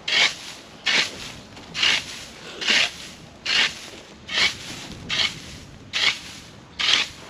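A makeshift broom of forked tree branches sweeping leaves across the ground in steady strokes, a rhythmic swish just under once a second.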